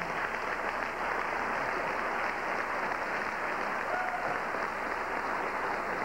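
Audience applauding steadily, the even patter of many hands clapping together.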